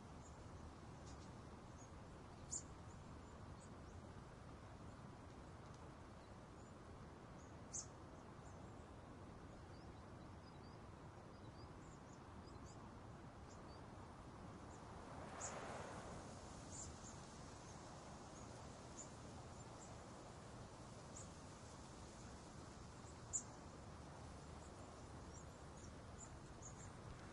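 Near silence: faint open-air ambience with a steady low hiss and scattered brief high-pitched chirps. A soft swell of noise comes a little past halfway, and a few short clicks stand out, the sharpest near the end.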